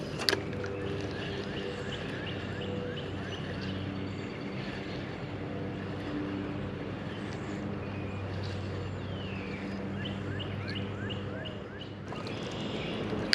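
A steady, engine-like drone running throughout, with short high chirps heard over it now and then.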